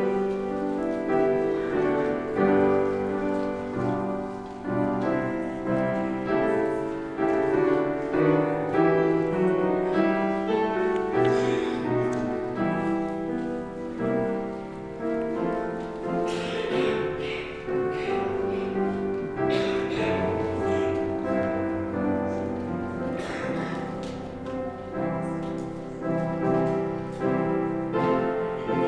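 Piano music, a steady flow of sustained chords and melody notes.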